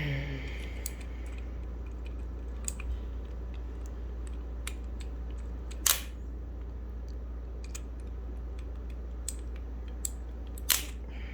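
Sparse sharp plastic clicks and snaps as the parts of a mechanical keyboard are handled, two louder snaps standing out about six and eleven seconds in, over a steady low hum.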